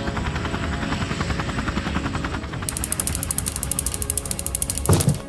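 Cartoon helicopter rotor sound effect: a fast, even chopping that turns sharper about halfway through, with a brief louder sound near the end.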